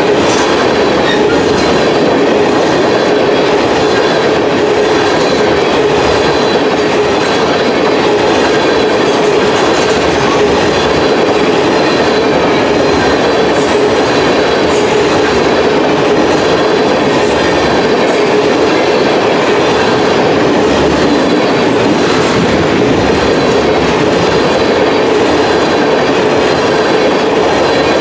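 Tank cars of a unit oil train rolling past close by: a loud, steady rumble and clatter of steel wheels on the rails, with a steady ringing tone running under it.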